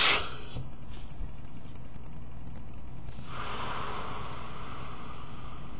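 A long, soft breathy hiss of smoke being blown out through a mask, starting about three seconds in, over a low steady background hum.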